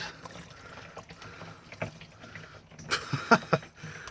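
Old engine oil running out of an excavator's sump drain hole into a drum, trickling and splashing, with a brief louder noise about three seconds in. The oil is foul: "nasty", and the engine "wasn't going to run on that oil".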